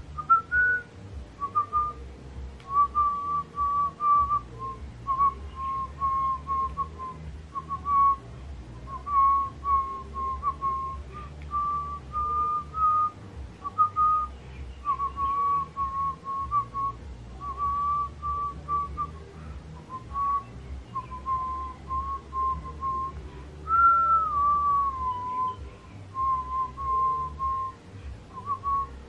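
A woman whistling a tune through pursed lips: a string of short, clear notes stepping up and down, with one longer note that slides downward about 24 seconds in.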